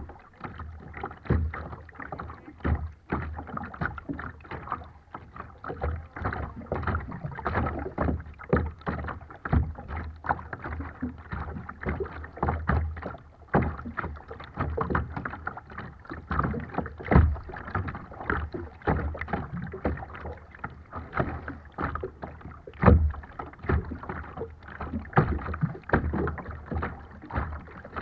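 Small waves lapping and slapping irregularly against a kayak's hull, close to the microphone.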